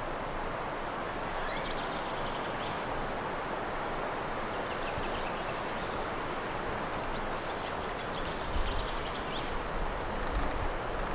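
Steady rushing outdoor background noise with faint, high, short bird calls scattered through it. From about two-thirds of the way in, a low uneven rumble of wind on the microphone joins.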